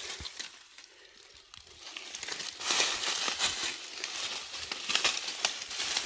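Rustling and crackling of dry leaves and undergrowth being handled, with many small clicks and snaps, as royal fern shoots are picked. It is quieter for the first two seconds, then busier.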